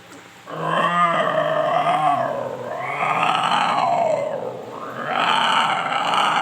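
A man imitating a leopard with his voice: three long, rough growling roars that rise and fall, the first starting about half a second in and the last running on past the end.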